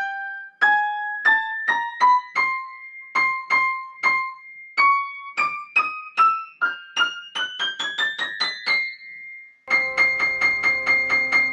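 FAZIOLI full concert grand piano, out of tune after going untuned since delivery, played one note at a time climbing steadily up the treble, faster toward the end. About ten seconds in it switches to a fast tremolo of repeated notes in both hands. The pianist finds the upper range even more off and calls the result pretty bad.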